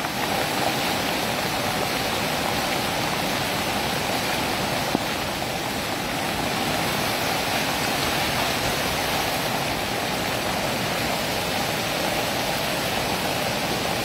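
Steady rush of floodwater pouring off a landslide-torn hillside and running across the road like a river.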